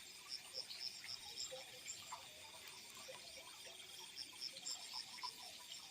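Crickets chirping in a night-time field: bouts of short, repeated high chirps over a steady, faint high-pitched insect trill.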